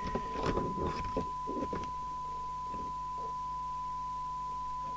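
Steady 1 kHz test tone from the President Johnson 2 CB radio's loudspeaker, the demodulated audio of a test signal it is receiving; the set only passes it with a strong signal of about 100 microvolts applied, a sign of poor receiver sensitivity. Light handling clicks and rustles over the tone in the first two seconds.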